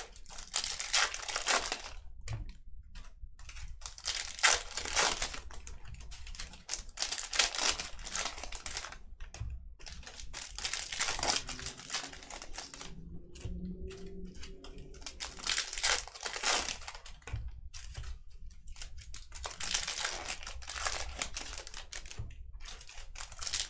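Foil trading-card pack wrappers being torn open and crinkled, in repeated irregular bursts of rustling.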